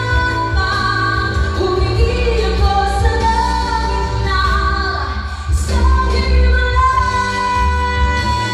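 A woman sings a pop song into a microphone over instrumental accompaniment with a strong bass. Her melody holds and bends from note to note, with a brief break about halfway through.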